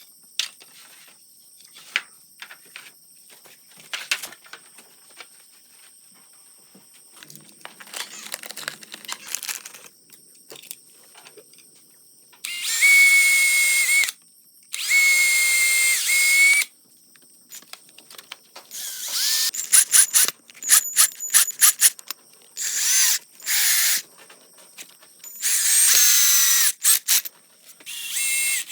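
Power drill running in repeated bursts of one to two seconds at a steady whine, with a run of quick short trigger taps in the middle. Scattered knocks and a short rasping scrape come before the first burst.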